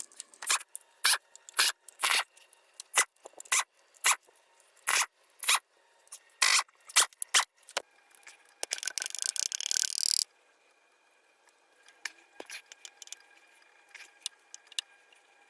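Ratchet wrench clicking in short irregular strokes as the oil-pan bolts are loosened. About eight seconds in comes a dense two-second rattling burst, then only a few faint ticks.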